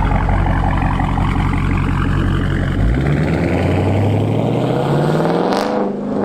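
Dodge Charger Scat Pack's 6.4-litre HEMI V8 running at low speed, then accelerating, its engine note climbing in pitch over the last three seconds.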